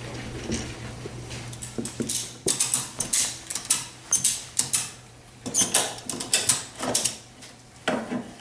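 Ratchet tie-down strap being fitted: the nylon webbing scrapes and rustles in a string of short pulls, starting about two and a half seconds in.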